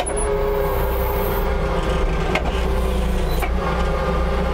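Forklift engine running steadily as the truck drives slowly carrying a loaded wire-mesh box with pallets stacked on top. Two short knocks, about a second apart, come midway.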